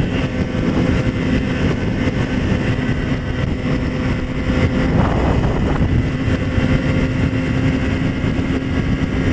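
2007 Yamaha YZF-R6's inline-four engine running at a steady highway cruise, its pitch holding level, under a constant rush of wind noise on the helmet-mounted camera.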